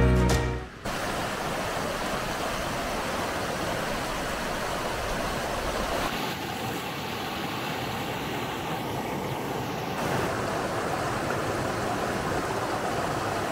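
White-water rapids on the River Affric rushing over rocks: a steady, dense rush of water. It shifts a little in tone about six and ten seconds in, and background music is fading out during the first second.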